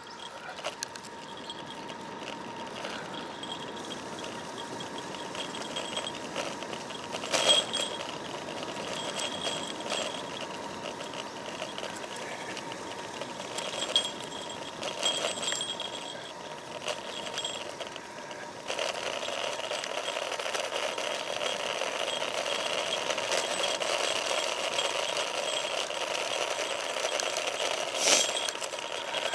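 Road bike rolling downhill: tyre and wind noise with the rattle of the handlebar-mounted gear, and a fast mechanical buzz of the kind a coasting freewheel makes. Three sharp jolts over bumps, and the rolling noise gets louder about two-thirds of the way through as speed builds.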